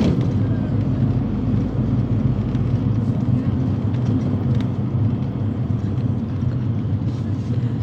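Steady low drone inside the cabin of a Ford Transit-based Nizhegorodets-222709 minibus as it runs along on its route: engine and road noise with no sharp events.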